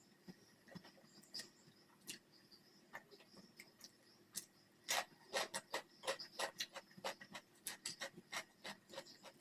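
Close-miked eating sounds: chewing and lip-smacking with wet mouth clicks, sparse at first and coming quickly from about five seconds in.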